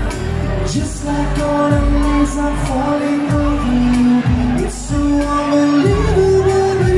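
Male singer performing a pop ballad live into a microphone with amplified band backing, holding long notes of the melody.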